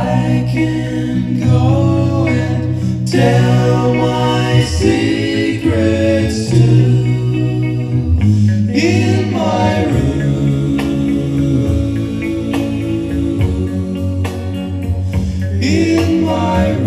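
A song with a lead singer and guitar playing loudly through a JBL Xtreme 3 Bluetooth speaker, with full bass and a crystal clear sound.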